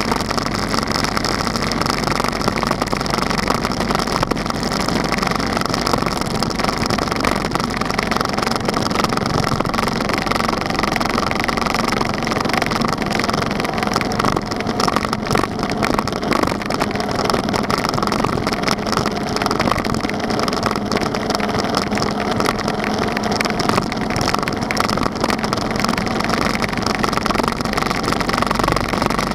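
Motorcycle engine running steadily at road speed, under a constant rush of wind noise on the microphone.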